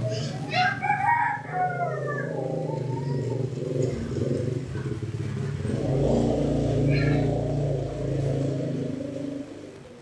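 A rooster crows once over the first two seconds or so, over a steady engine hum that swells about six seconds in and fades near the end.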